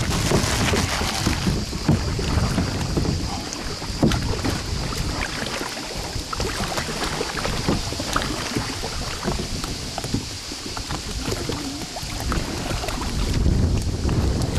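Canoe paddles dipping and splashing in river water, with irregular knocks and a steady high hiss behind, and wind rumbling on the microphone.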